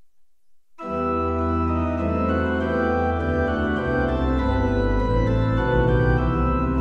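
Viscount Vivace 30 digital church organ playing a Norwegian hymn in full sustained chords over a deep bass line, starting suddenly about a second in.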